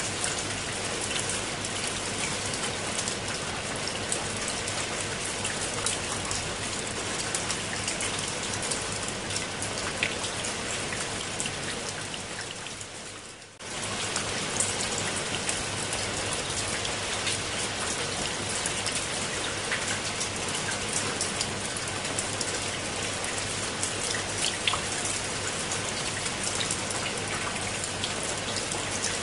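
Steady rain falling on leaves and wet stone steps, a dense hiss full of small drop ticks. About halfway through the sound fades away over a couple of seconds, then comes straight back at full strength.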